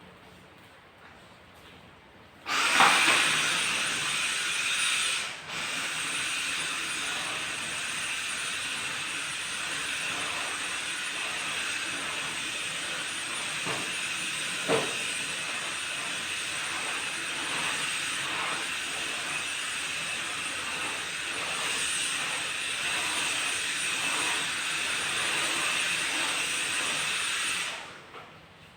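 An electric appliance motor running: a steady hiss of rushing air with a high whine, switched on about two and a half seconds in, briefly dipping a few seconds later, and switched off near the end.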